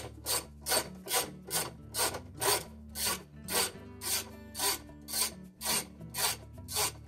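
Half-inch ratchet with socket and extension turning out the agitator's mounting bolt in a top-load washer: a short rasping burst of pawl clicks on each back-stroke, about two strokes a second, evenly kept up.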